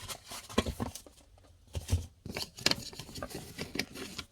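Scattered small clicks, taps and rustling from plastic parts and wiring being handled: the S3XY buttons controller module and its cable harness being picked up and positioned.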